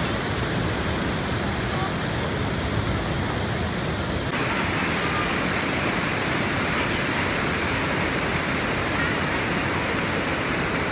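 Waterfall: a steady rush of river water pouring through a rock chute into a pool. The hiss of the water grows brighter about four seconds in.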